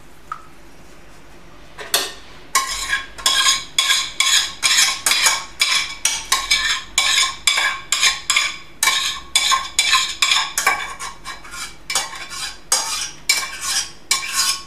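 A utensil scraping the inside of a stainless steel saucepan in quick repeated strokes, about two to three a second, with the pot ringing, starting about two seconds in. This is the last of the cheesecake mixture being scraped out of the pan into the mould.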